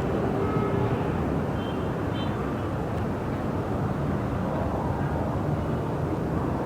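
Steady city ambience: a continuous low rumble of distant traffic, with a few faint, short high tones about two seconds in.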